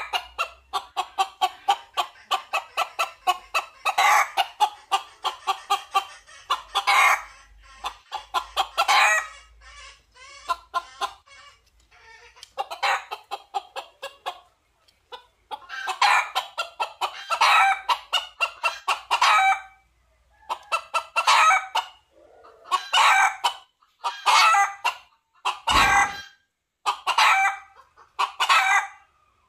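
Red junglefowl calling in repeated bursts of rapid clucks, each burst a second or two long with short pauses between. A short low thump comes near the end.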